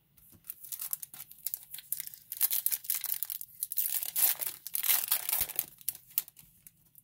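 Foil wrapper of a Topps Chrome Update baseball card pack being torn open and crinkled by hand: a dense run of crackling that starts just after the beginning, is loudest in the middle and dies away near the end.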